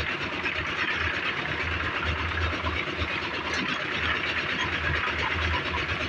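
A concrete mixer's stationary engine running steadily with a low, uneven thump, under the continuous churning noise of the mixer.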